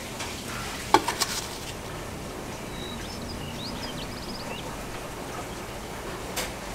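A small metal garden trowel set down in a galvanized tin gives a few quick taps about a second in, followed by a soft steady hiss of handling pots and soil. Faint short bird chirps come in the middle, and there is one more light tap near the end.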